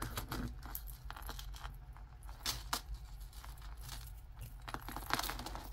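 Light, irregular clinks and rattles of a thin gold-tone metal chain necklace with small metal clover charms being handled and moved on a table.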